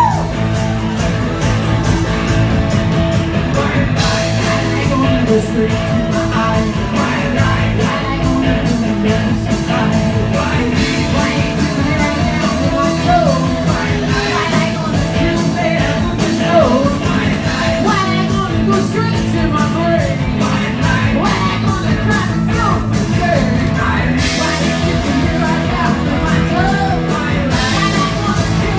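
Live rock band playing at full volume: a woman sings lead over electric guitars and a drum kit keeping a steady, driving beat.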